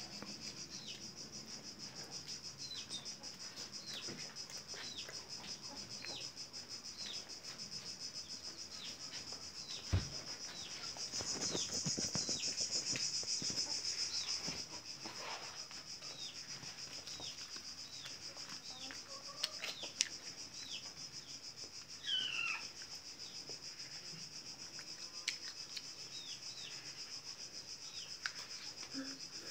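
Small birds chirping: short falling chirps repeated about once a second over a steady high-pitched hiss, with a few sharp clicks.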